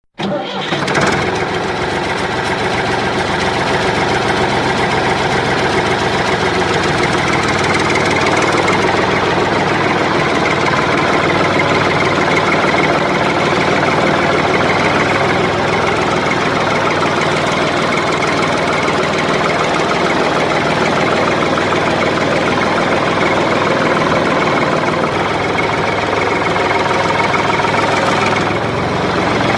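An engine running steadily at idle with a knocking beat, the sound of a tractor-style diesel.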